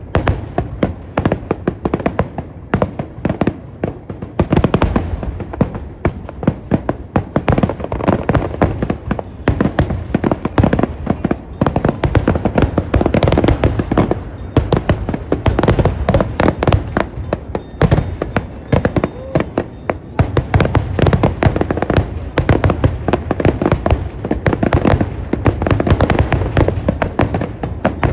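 Consumer fireworks going off in a rapid, continuous barrage of bangs and crackling, with no break.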